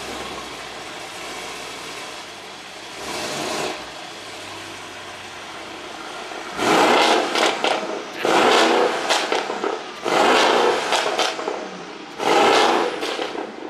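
A Mercedes-AMG GT four-door's engine revved in five short bursts, the first lighter and the last four loud, each about a second long and a couple of seconds apart.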